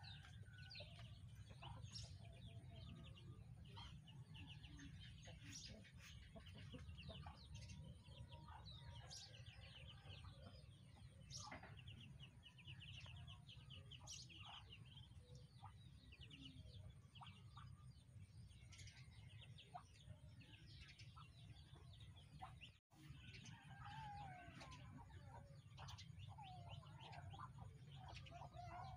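Faint outdoor birdsong: scattered chirps and calls, with a rapid trill about halfway through, over a steady low hum. The sound cuts out for a moment about three-quarters of the way in.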